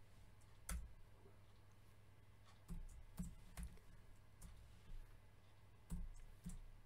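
Computer keyboard keystrokes, about eight separate key clicks at an uneven pace as a line of code is typed, over a faint steady low hum.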